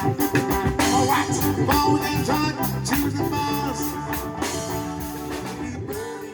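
Reggae band playing, guitar and rhythmic beat, the music steadily fading out.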